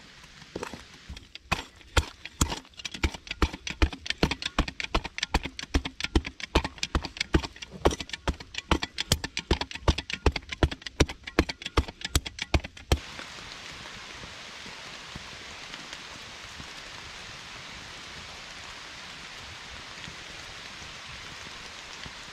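A fast, irregular run of sharp knocks, several a second. About thirteen seconds in it cuts off abruptly into a steady, even hiss.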